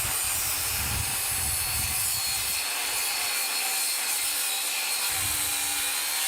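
Angle grinder cutting through the steel of an AKM rifle: a steady, loud hissing grind with a faint high whine. About five seconds in, a lower steady hum joins it.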